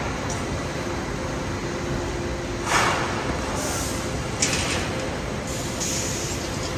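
Rock wool production line machinery running with a steady industrial din, a faint hum in it, and short hissing surges twice.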